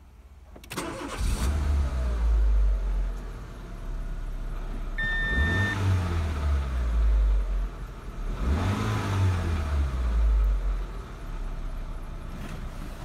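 Renault K4M 1.6-litre 16-valve four-cylinder petrol engine cranked and catching about a second in, then revved up a couple of times and settling to idle near the end. A short dashboard warning beep sounds about five seconds in.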